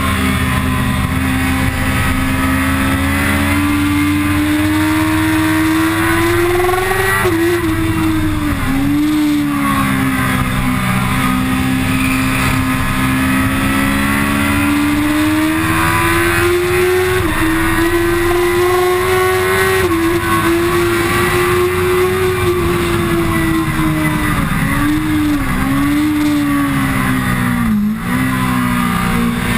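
Kawasaki ZX-10R's inline-four engine at high revs, heard from on board the bike with wind noise. The engine note climbs and drops again and again with the throttle and gear changes, with several quick dips near the end.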